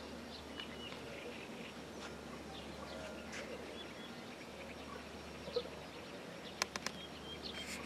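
Faint scattered calls of birds and frogs over a steady low hum, with a quick run of three or four sharp clicks about six and a half seconds in.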